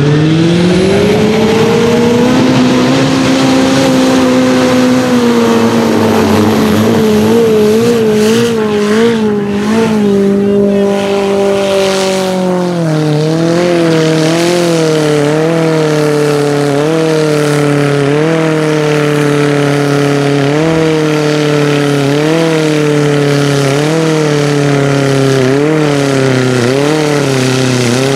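Formula Offroad buggy's engine run at full throttle as the buggy skims across water: the revs climb steeply at the start and hold high. About halfway through they drop, then surge up and down about once a second while the paddle tires churn through the water.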